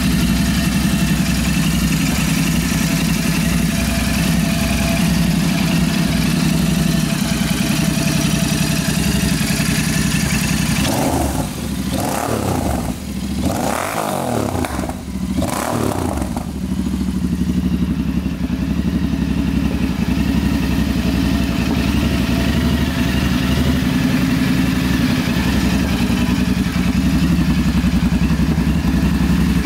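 Royal Enfield Interceptor 650's parallel-twin engine idling steadily through its twin exhausts. About halfway through it is revved a few times in quick succession, then it settles back to idle.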